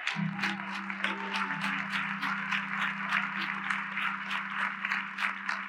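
Audience applauding with fast, dense clapping, over a single low note held steadily on an instrument that starts just after the clapping begins.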